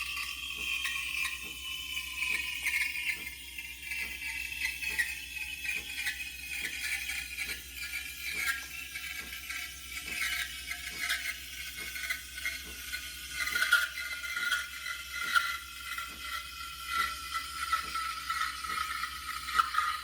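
Espresso machine steam wand frothing milk in a pitcher: a hissing, whistling screech whose tones slowly fall in pitch, over a steady ticking at about two ticks a second.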